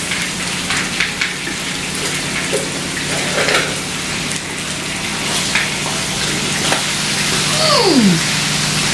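Seasoned chicken thighs frying in hot oil in a pan: a steady sizzle with crackling spatters of oil, getting louder near the end. A short falling tone is heard about three quarters of the way through.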